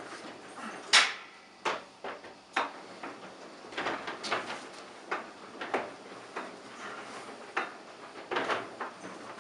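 Hands and climbing shoes knocking and scuffing on small crimp holds and wooden panels of a rotating climbing treadwall. About a dozen sharp knocks come at uneven intervals, the loudest about a second in.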